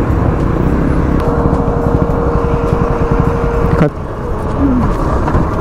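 Motorcycle on the move: steady engine and wind rumble. A single steady note sounds for nearly three seconds over it and cuts off abruptly with a click, after which the rumble is a little quieter.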